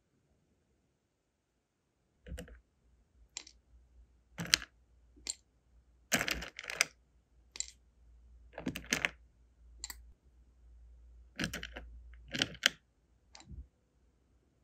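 Small flower-shaped sealing wax beads clicking and clattering against each other and the clear plastic drawer as they are picked through, in about a dozen separate short clatters over a low handling rumble.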